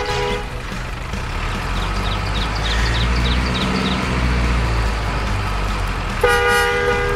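Truck engine sound droning low and steady, with a short horn blip at the very start and a louder horn toot of about a second near the end.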